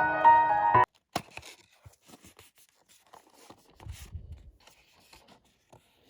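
Piano background music that cuts off abruptly about a second in, followed by faint handling of a perfume box and its packaging: scattered clicks, light scraping and rustling, with a duller rubbing noise around four seconds in.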